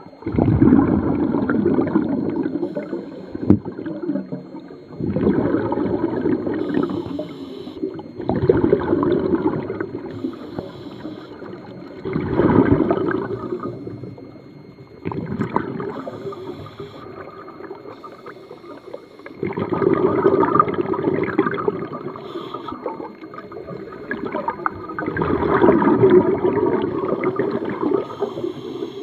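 Scuba regulator breathing underwater: exhaled air bubbles gurgling out of the regulator in surges every three to four seconds, about seven in all, with quieter gaps between for the inhales.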